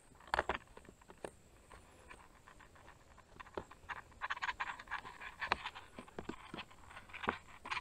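Plastic water filter being screwed onto the spout of a filled squeeze filter bag: faint, irregular clicks, creaks and crinkles of plastic being handled, busiest about halfway through.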